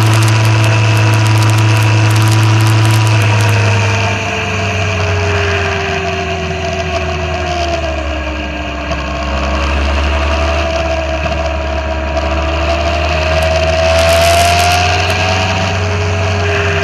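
Motorcycle engine running while riding, holding steady revs at first, then the note drops about four seconds in and rises and falls through the bends, with a brief dip near the end.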